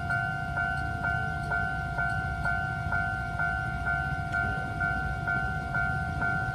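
Level-crossing warning bell ringing in a steady repeating two-tone ding, about two strokes a second, over a low rumble.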